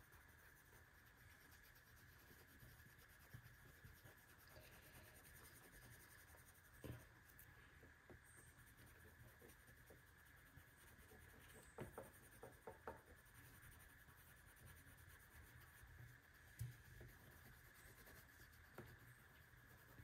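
Faint sound of a felt-tip marker rubbing back and forth on marker paper, colouring in an area, with a few soft taps along the way.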